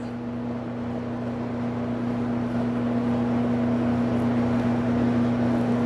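Bluedog BWS-50 SAR wire stripping machine's electric motor running with a steady hum.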